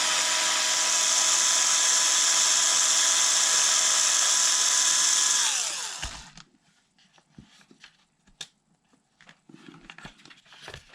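Cordless electric screwdriver running at a steady whine to back out a 2.0 mm hex screw. It winds down with a falling pitch about six seconds in, followed by a few faint clicks of small parts being handled.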